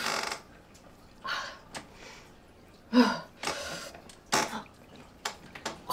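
A woman's short breathy sounds: several sharp breaths about a second apart and a brief voiced grunt about three seconds in, with a few small clicks near the end.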